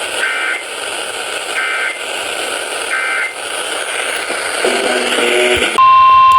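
Weather-radio broadcast over FM static hiss: three short warbling data bursts of EAS end-of-message tones, about 1.3 seconds apart, then a brief buzz and, near the end, a loud steady alert tone that begins the next warning.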